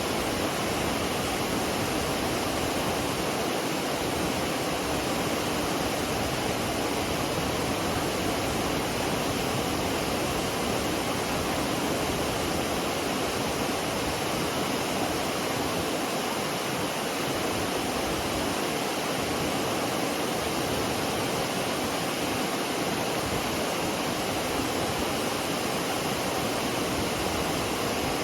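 McCloud Falls on the McCloud River: a steady, unbroken rush of falling water.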